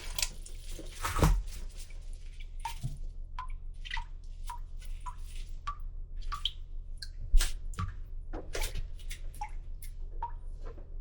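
Water dripping into water, about two drops a second, each a short plinking drip. Two louder dull thumps break in, about a second in and again near 7.5 seconds.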